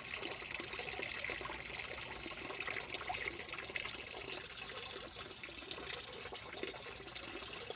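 Steady, faint trickle of running water in a small backyard fish pond.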